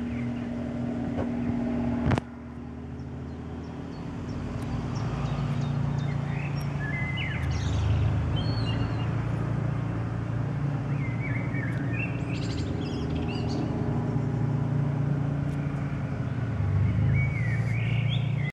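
Small two-bladed helicopter passing low overhead and flying off, its rotor and engine droning steadily. There is a sharp click about two seconds in, and birds chirp on and off.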